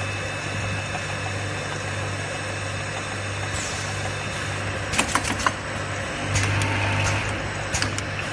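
Automatic air-blowing bottle rinsing machine running: a steady motor hum, with a quick cluster of sharp clacks about five seconds in, then a short hiss of air and more scattered clacks near the end.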